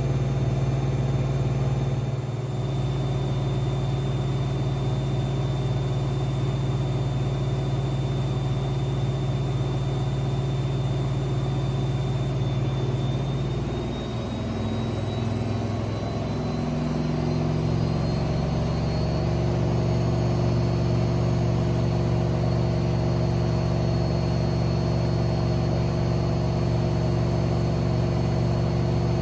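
AEG Lavamat 6610 washing machine spinning: a steady motor hum with a thin high whine. The pitch shifts between about 12 and 19 seconds in as the drum speed changes, then runs steady again.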